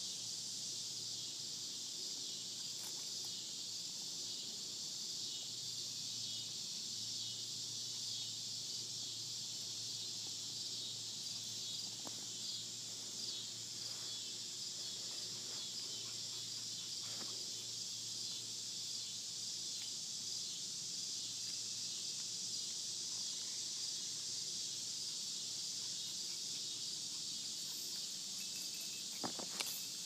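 Steady, unbroken high-pitched drone of cicadas calling, with a couple of faint clicks near the end.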